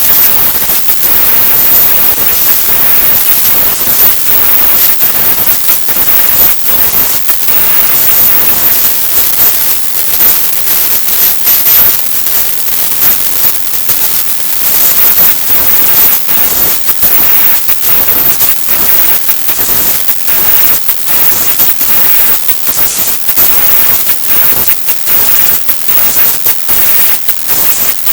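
A rap song's audio so heavily treble-boosted that it comes through as loud, harsh static hiss, fluttering and crackling constantly. The lyrics and beat are lost in the distortion.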